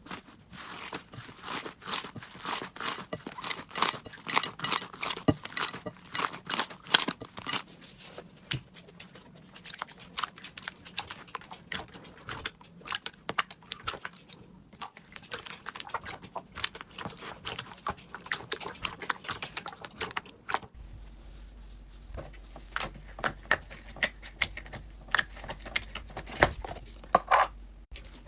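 Slime being squished and pressed, a dense run of sharp crackling clicks and pops. About two-thirds of the way through it changes to sparser clicks over a low hum.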